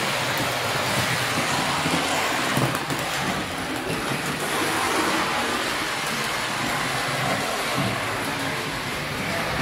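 Steady rolling rumble of Lionel O gauge model trains running on three-rail track, with a low motor hum under the wheel noise.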